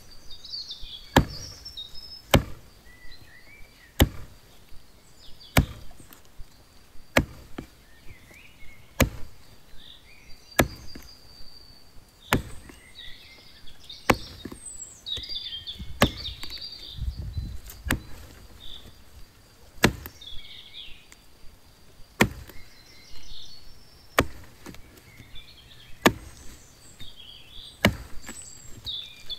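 Fiskars X7 XS hatchet chopping into a small standing tree trunk: a steady run of sharp blows, about one every one and a half to two seconds. Small birds chirp between the strikes.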